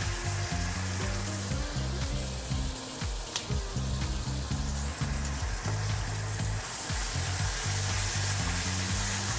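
Sliced onion and red bell pepper sizzling as they fry in a small saucepan, with fish sauce poured in at the start. The sizzle grows louder about two-thirds of the way through as chopsticks stir the vegetables.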